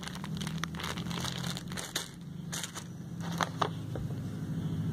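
Clear plastic packaging bag crinkling and crackling as it is handled, in scattered irregular crackles over a steady low hum.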